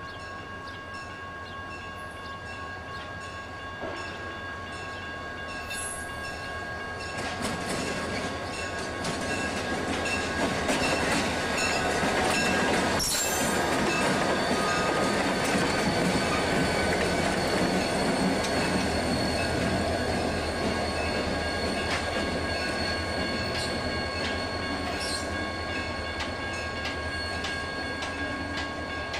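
BNSF diesel freight locomotives rumbling past on the adjacent track: the engine and wheel noise builds to a close pass about halfway through, then fades as they move away. A steady high squeal runs under it, and there is a single sharp clank around the moment of the closest pass.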